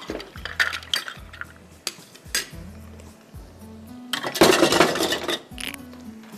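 A metal spoon clinking against bowls and a non-stick wok, then, about four seconds in, a loud burst of frying lasting a little over a second as crushed garlic is stirred in hot oil. Background music plays underneath.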